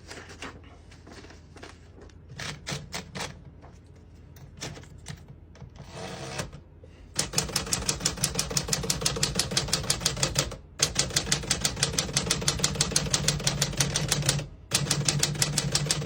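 1949 Smith-Corona Sterling manual portable typewriter. A few quiet, scattered clicks from its mechanism come first, then about seven seconds in a fast, even run of key strikes starts, several a second, broken by two short pauses.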